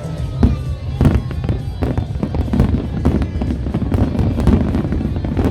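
Aerial fireworks going off in rapid succession: sharp cracks and bangs over a constant deep rumble of bursting shells.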